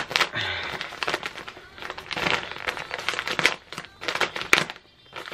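Plastic poly mailer bag crinkling and crackling irregularly as hands tug and pull at it, trying to get it open; the bag is hard to open.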